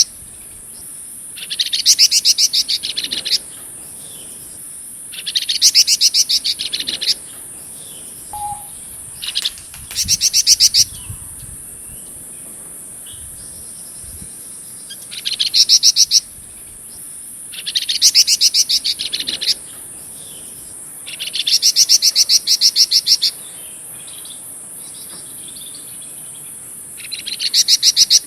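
Flamboyan songbird singing in repeated bursts of fast trilled notes, each phrase one to two seconds long, about eight in all, over a steady high-pitched insect drone.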